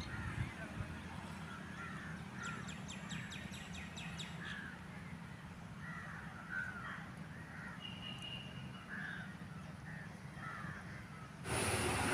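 Birds calling repeatedly, short calls scattered over a low steady rumble, with a run of rapid high chirps a few seconds in. Near the end a loud rushing noise cuts in suddenly.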